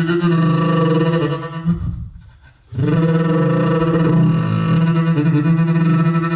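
Loud, sustained low drone with a rich stack of overtones, like a bowed double bass, held on one pitch. It breaks off about two seconds in and comes back under a second later.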